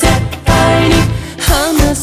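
Background pop song with Japanese lyrics: a singer over band accompaniment, one note bending and wavering in pitch in the second half.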